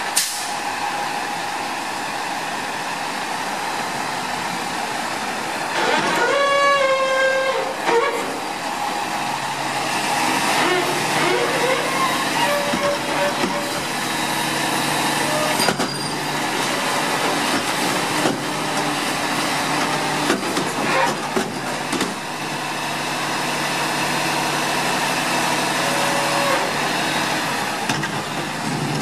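Front-loader garbage truck (New Way Mammoth) lifting a commercial dumpster over its cab on hydraulic forks, emptying it into the hopper and lowering it again. The engine runs up to a higher steady speed about nine seconds in to drive the hydraulics, with sharp metal knocks from the bin as it is dumped. A brief pitched squeal sounds about six seconds in.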